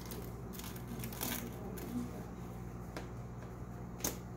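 A knife sawing through the crust of a freshly baked, cheese-topped stuffed bread loaf: soft, uneven crackling rasps, with two sharp clicks near the end.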